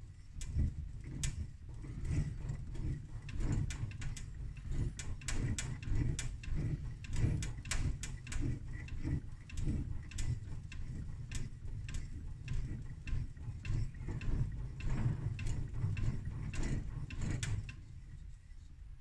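Back of a laminated Japanese steel blade rubbed quickly back and forth under finger pressure on a wet, slurried sharpening stone: gritty scraping strokes full of crackling clicks from the grit, stopping near the end.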